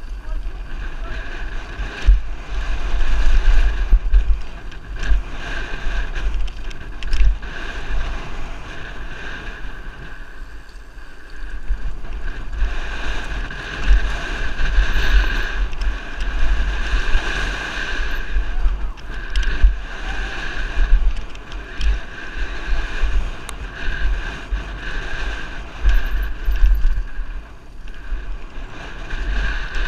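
Wind buffeting the microphone of a helmet-mounted camera during a fast mountain-bike descent, with the tyres crunching over a loose gravel trail and the bike rattling and knocking over bumps.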